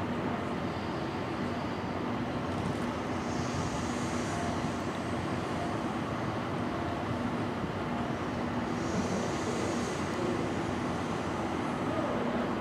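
DD51 diesel-hydraulic locomotive, with its twin diesel engines, running steadily as it moves slowly while hauling passenger coaches in a shunting move: a continuous engine drone with a low steady hum.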